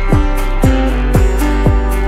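Background music with a steady beat of about two strokes a second.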